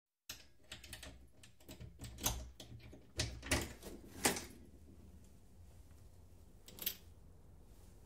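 Yale lock on a front door being unlocked from inside: a run of quick metallic clicks and rattles for the first four seconds or so, then a single click near the end.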